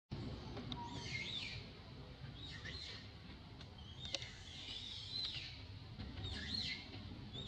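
A few short, high chirping animal calls that rise and fall in pitch, over a steady low outdoor rumble.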